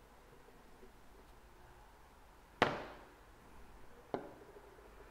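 Two sharp taps or knocks on a hard surface in a quiet room, the first louder with a short ring after it, the second about a second and a half later and smaller.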